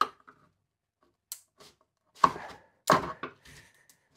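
A series of sharp metallic knocks and clicks as the stuck lid of an old tin of paint is prised at, the loudest about two and three seconds in, one followed by a faint brief ring.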